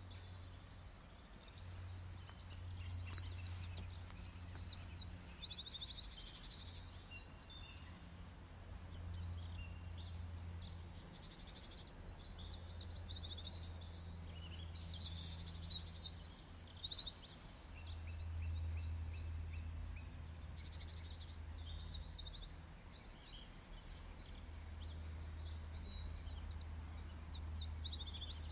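Small songbirds singing and chirping in quick, high trilled phrases, busiest about halfway through and again near the end, over a steady low hum.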